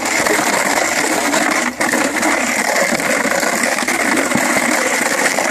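Empty plastic bottles clattering and crackling without a break as a dog and its handler shift about on a pen floor covered with them.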